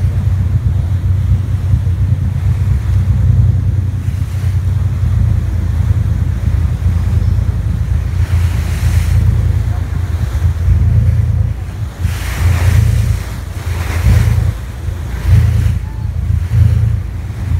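Wind buffeting the microphone aboard a boat on open water: a loud, uneven low rumble, with a few stronger hissing gusts in the second half.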